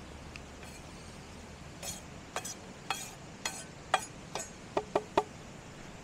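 A string of light clinks and taps as a knife and wooden board knock against the rim of a steel pan, shaking chopped tomatoes into it. The taps start about two seconds in, roughly two a second, and the last three come quicker and ring briefly like struck metal.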